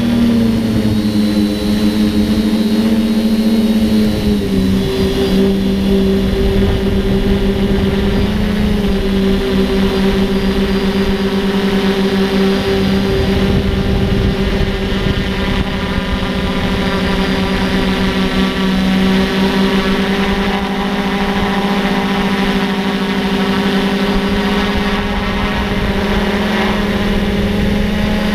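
Quadcopter's electric motors and propellers buzzing steadily, heard close up from the camera it carries, over a rough low rumble. The pitch drops slightly about four seconds in, then holds.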